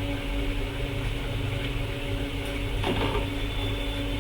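Steady low electrical hum with a faint click about three seconds in.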